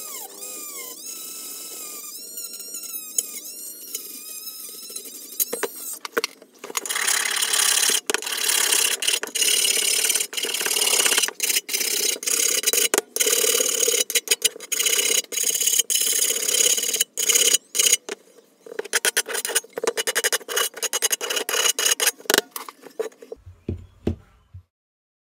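Small handheld rotary tool with an abrasive disc grinding a steel strip. A wavering, gliding whine in the first few seconds gives way to dense grinding noise, broken by many short gaps as the metal is pressed on and lifted off, which stops shortly before the end.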